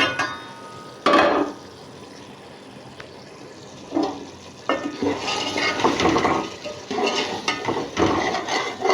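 A spoon stirring and scraping chicken and pea curry in a cooking pot, in irregular bursts, with one short burst about a second in and a longer run of stirring from about four seconds to near the end.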